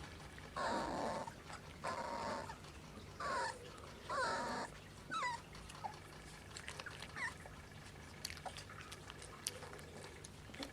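Young Kleine Münsterländer puppies yelping four times, then giving thin high whines that fall and rise in pitch. Scattered small clicks and ticks follow in the second half.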